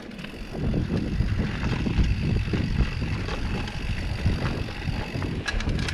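Mountain bike rolling down a dirt trail: a steady low rumble of tyres over the ground, with wind on the microphone.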